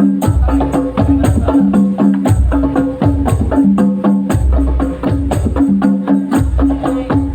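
Loud music through a sound system during a sound check: a fast percussion beat of sharp hand-drum and tambourine-like strikes, deep bass hits, and a repeating two-note low line.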